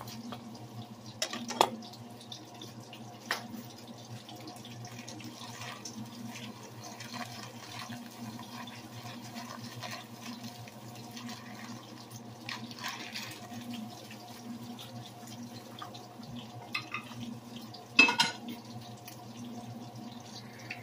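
Water heating in a steel pot on the stove over a low steady hum, with a brief rustle partway through as dry rice is poured in from a bag. A few sharp knocks sound on the pot, the loudest near the end.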